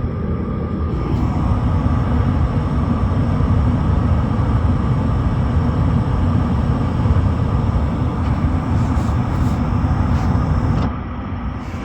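Gas furnace running after its power was cycled, a steady low rumble that drops somewhat near the end.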